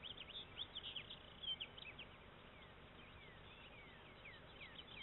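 Small birds chirping faintly: many short, quick downward-sliding calls, thick in the first two seconds and then sparser.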